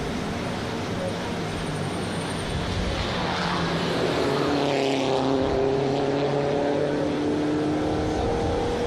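Touring race car engines heard through a television speaker. Around four to five seconds in the engine note dips and climbs again, then a steady engine note rises slowly to the end.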